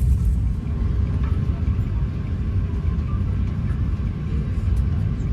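Steady low rumble of airliner cabin noise aboard an Airbus A350-900, with no distinct events standing out.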